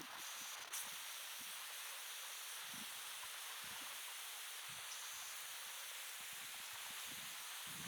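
Faint steady hiss of outdoor ambience, with a single click about three-quarters of a second in.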